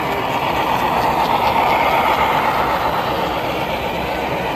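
HO scale model train running close by on a layout: Union Pacific diesel locomotives pulling refrigerator cars over the track, a steady running noise that swells a little as the locomotives pass.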